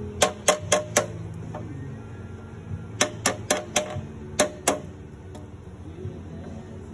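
Sharp metal taps in quick runs of about four a second (four, a pause, four more, then two), a steel punch knocking drilled-out rivets out of a truck tail light's mounting holes. Background music plays underneath.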